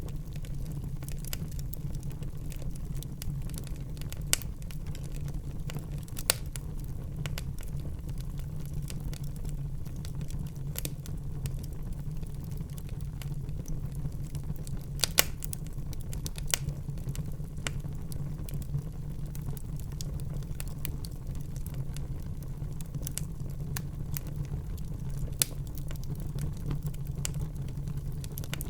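Wood fire burning in a fireplace: a steady low rumble of the flames with scattered sharp crackles and pops, a few of them louder than the rest.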